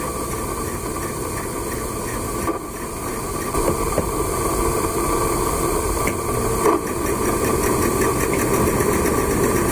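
Electric home sewing machine running steadily, its motor whirring and the needle stitching a seam through fabric, with a brief dip about two and a half seconds in.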